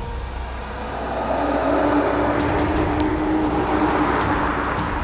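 Car engine and road noise, growing louder about a second in and holding, with a steady hum, then easing near the end.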